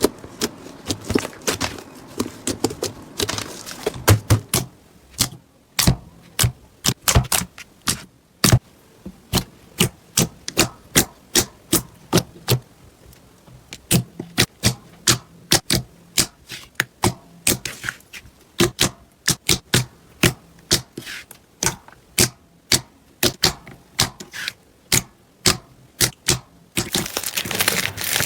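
Slime being pressed and squeezed by hand, giving a long irregular run of sharp popping clicks, about one to three a second, as trapped air pockets burst. Near the end a denser crackling takes over.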